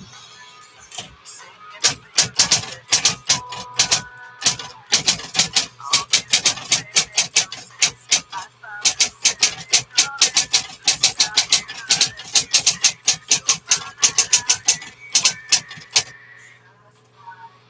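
1960s Smith Corona Coronet Electric 12 electric typewriter: the carriage is returned at the start, then fast typing with dense, sharp key strikes over a steady low hum of its motor. The typing stops near the end.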